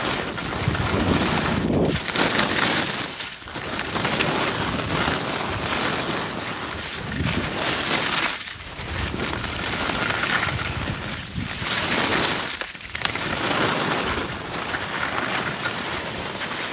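Skis scraping and carving through loose, churned-up snow on a steep run, mixed with wind rushing over the microphone of a camera carried by a skier in motion. The rush swells and falls in waves, dropping off briefly several times.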